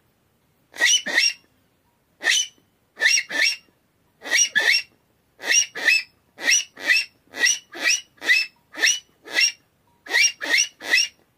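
Handmade aluminium mocó call blown in a series of short, sharp calls, many in pairs or threes, coming faster after the first few seconds. It gives the rough, raspy call imitating the rock cavy (mocó), not a smooth whistle.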